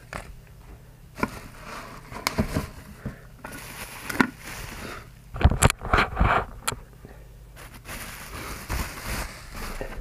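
Bubble wrap rustling and crackling and a cardboard box scraping as a wrapped glass teapot is lifted out, with scattered clicks and knocks from handling. It is loudest and busiest a little over halfway through.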